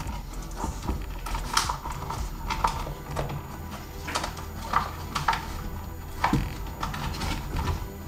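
Wires and plastic connectors being pushed and tucked into a plastic tail light housing: scattered light clicks and rustles, about eight over a few seconds.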